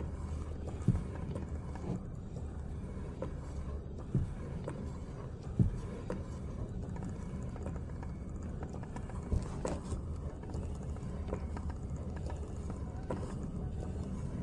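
Briggs & Stratton 3.5 hp cutaway engine turned slowly by its hand crank, with soft irregular clicks and knocks from its exposed gears, valves and springs. A steady low rumble runs underneath.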